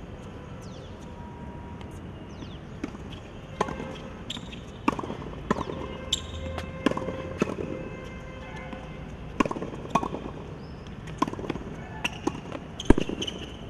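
Tennis ball being hit by rackets and bouncing on a hard court during a rally: sharp pops every second or two, often in pairs about half a second apart.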